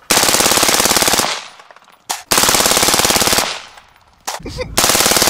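Suppressed LaRue Tactical SUURG 5.56mm rifle firing on full auto: three bursts of rapid shots, each about a second long, with short pauses between.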